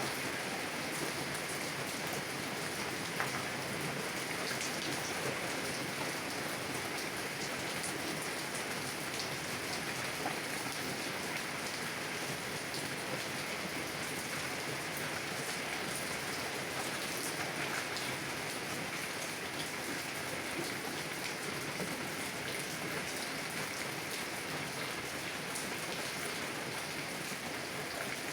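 Heavy rain falling on a car's window and body: a steady hiss with scattered sharper ticks from individual drops.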